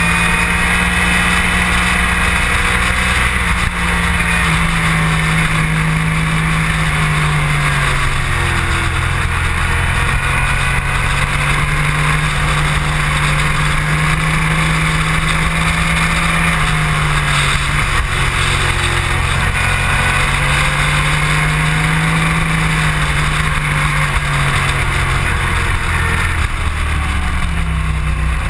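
Sport motorcycle engine running hard at track speed, its note slowly falling and climbing again several times as the bike slows for corners and accelerates out of them. Steady wind rush over the onboard microphone runs beneath it.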